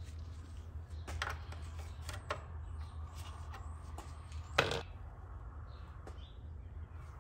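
A few light clicks and knocks of metal parts being handled as the oil filler plug is worked loose and lifted off a Briggs & Stratton 6B-SF engine, the sharpest knock a little past halfway. A steady low hum runs underneath.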